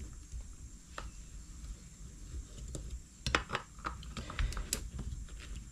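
Scattered light clicks and taps of a T-handle screwdriver working screws on a Stihl MS 200T chainsaw's housing as the saw and tool are handled on a workbench, with a cluster of clicks in the middle, over a low background rumble.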